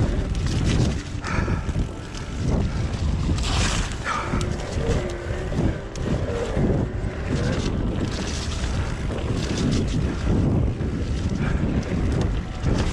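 Wind buffeting the microphone over tyre roar and the clatter of a mountain bike riding down a rough downhill trail. There are frequent knocks and rattles, and a wavering tone for a few seconds about halfway through.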